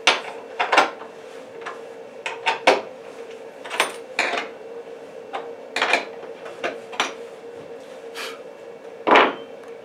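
Cut maple pieces being picked up and set down on a CNC router's MDF spoilboard: a series of irregular sharp wooden knocks and clatters, the loudest near the end, over a steady faint hum.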